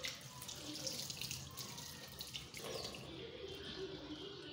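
Water running from a tap into a washbasin and splashing over hands being washed.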